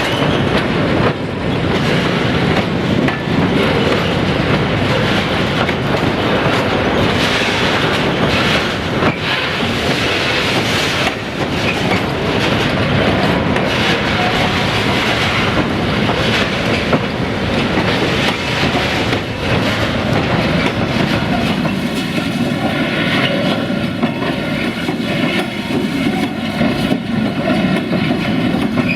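Freight train wagons rolling past, wheels clicking steadily over the rail joints.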